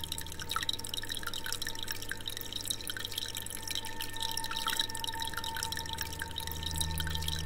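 Water in a reef aquarium trickling and dripping, a constant patter of quick small drops over a steady low hum that swells near the end.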